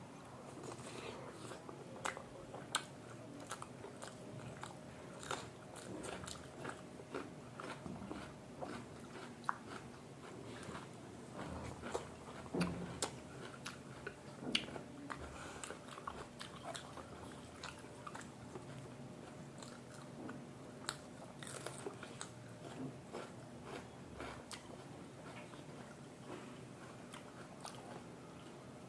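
Close-miked eating sounds from a meal of chow mein and momos: chewing, biting and wet mouth smacks with irregular small clicks. A few louder clicks come about two seconds in and around twelve to fifteen seconds in.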